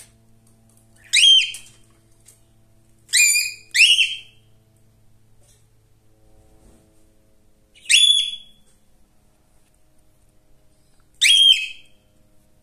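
Cockatiel giving five loud, short calls, each sweeping up in pitch; two come in quick succession about three seconds in.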